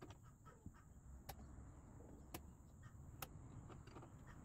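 Near silence with a low hum, a scatter of faint ticks and three sharp clicks about a second apart.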